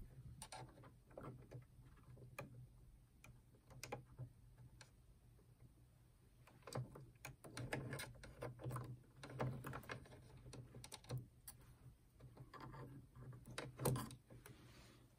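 Faint, irregular small clicks and rattles of hands handling small plastic and metal parts of a stereo's cassette mechanism during a drive-belt change, over a steady low hum.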